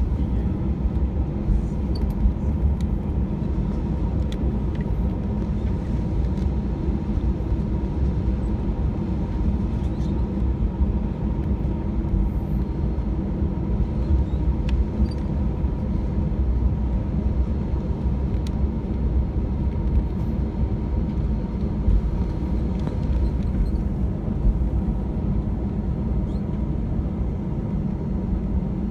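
Cabin noise of an Airbus A320-200 taxiing: a steady low rumble from the engines at taxi power and the airframe rolling over the taxiway, with a faint steady whine above it.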